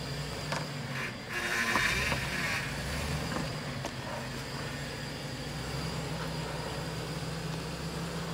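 Lifted Chevrolet Suburban's V8 engine running steadily at low revs as it crawls over rocks, with a few creaks and knocks from the body and suspension. There is a short louder burst of noise about a second and a half in.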